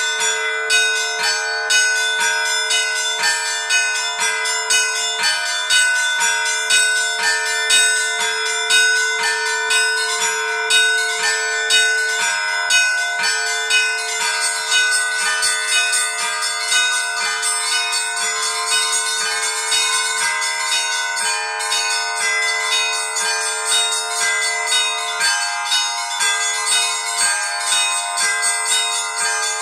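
Seven Orthodox church bells rung by an automatic electronic bell ringer in the traditional Easter peal. The smaller bells are struck rapidly and continuously over a deeper bell ringing on underneath.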